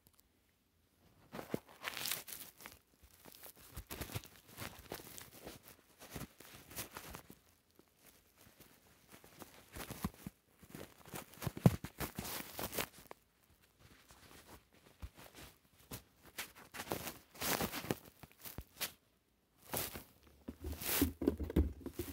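Paper and plastic toy packaging being handled, crinkled and torn in irregular bursts with short pauses between them.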